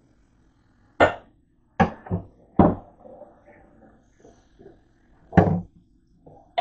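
Sharp knocks and clatters, about six in a few seconds, from kitchen utensils and cookware being handled at a sink.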